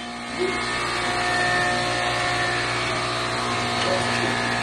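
A steady machine-like hum, made of several fixed tones over an even hiss, with faint voices in the background.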